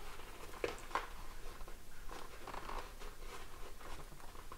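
Handling noise as intercom speaker wires are pushed under a motorcycle helmet's padded lining: soft rustling of wire against foam and fabric, with two small clicks about a second in.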